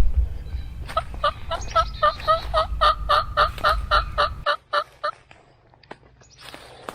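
A handling knock, then a fast, even run of about seventeen turkey yelps, about five a second, lasting some three and a half seconds, the excited calling known as cutting.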